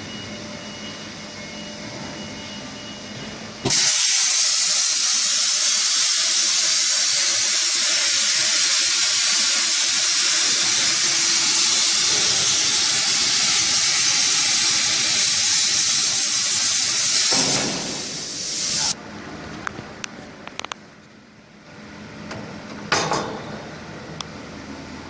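Air plasma torch of a CNC plasma cutter (Hypertherm 105A) cutting 8 mm steel: a loud, even hiss that starts suddenly about four seconds in, changes near seventeen seconds and cuts off sharply around nineteen seconds. Before and after it, a quieter steady machine background with a few clicks.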